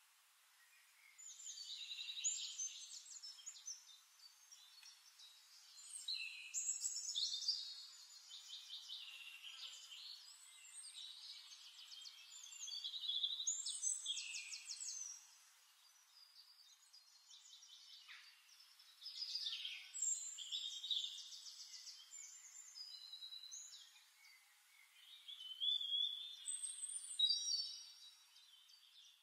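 Songbirds singing in about five bursts of rapid trills and chirps, each a few seconds long, with quieter stretches between.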